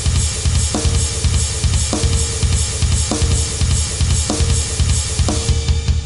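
Hard rock music: a drum kit plays a steady driving beat of bass drum, snare and cymbals, under held notes that change about once a second.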